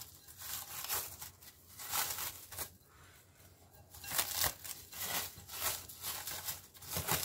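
Plastic cling film crinkling as it is peeled back off a bowl, in a string of irregular rustling bursts about a second apart.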